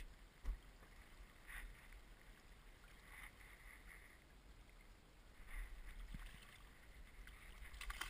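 A small hooked sturgeon splashing at the surface beside the boat several times, over a low wind rumble on the microphone.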